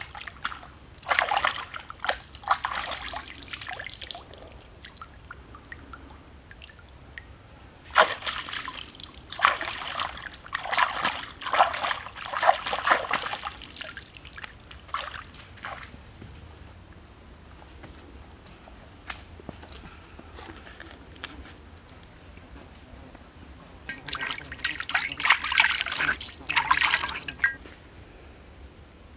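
Water splashing and sloshing in several irregular bursts as a live fish is caught by hand in shallow muddy water. A steady high-pitched insect drone runs underneath throughout.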